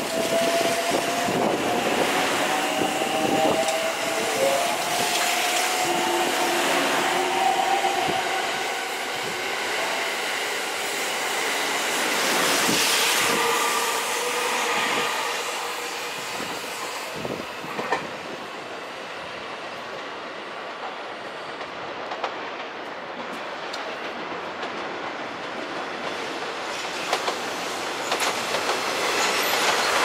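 JR West 683 series electric train pulling out, its inverter motor whine rising slowly in pitch over the first several seconds while the wheels clack over rail joints and points. The train noise then fades, with scattered wheel clicks continuing.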